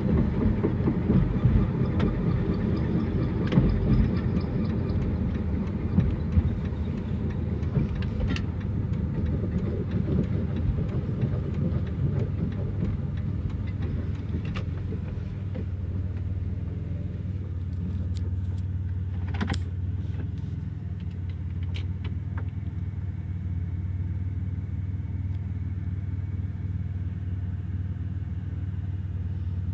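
1999 Dodge Grand Caravan running with a low rumble, with knocks and clatter over roughly the first half, settling into a steadier hum after that. The van's transmission is failing.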